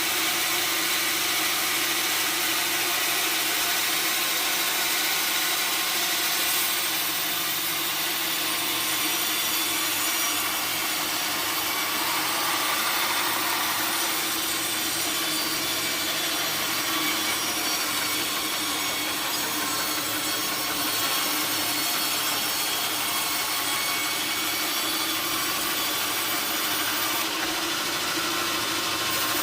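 A sawmill saw cutting steadily through a wooden log: a continuous rasp with a steady whine and no break.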